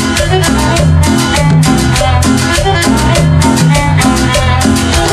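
Loud Latin dance music with a steady beat, a repeating bass line and percussion, played over a sonidero's sound system.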